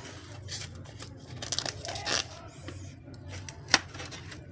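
Styrofoam takeaway boxes and bread being handled on a table: squeaky, crinkly rubbing and scraping of the foam, with one sharp click about three-quarters of the way through.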